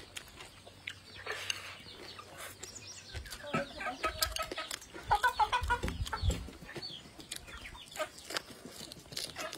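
Chickens clucking, a run of short calls loudest about four to six seconds in, over close-up chewing.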